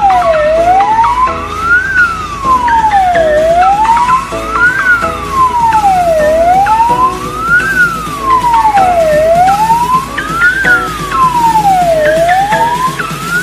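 Electronic emergency-vehicle siren in wail mode, sweeping smoothly up and falling back down in pitch about once every three seconds.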